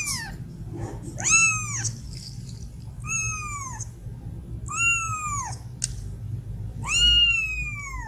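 A young kitten meowing repeatedly, high-pitched calls that rise and then fall, about one every two seconds. The last call is the longest.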